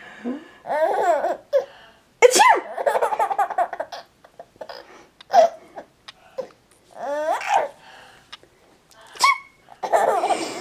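A baby laughing in several short bursts, with an adult sneezing between them. The loudest moment is a sudden sharp burst about two seconds in, followed by choppy laughter.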